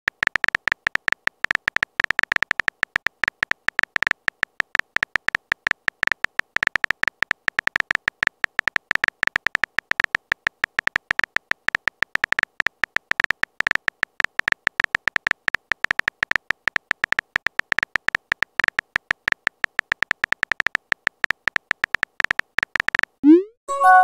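Texting-app keyboard typing sound effect: a fast, steady stream of short, high, beep-like clicks as a message is typed letter by letter. Near the end the clicks stop and a quick rising swoop plays as the message is sent.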